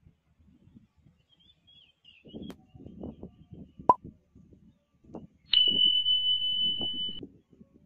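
Subscribe-button animation sound effect: a short click about four seconds in, then a bell ding held on one high note for about a second and a half. Under it runs an uneven low rumble.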